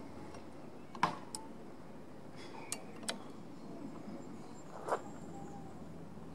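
A handful of light metallic clicks and clinks as a metal brake lever is fitted into its bracket on a scooter handlebar and its steel pivot bolt is handled, about five separate clicks with the loudest about a second in.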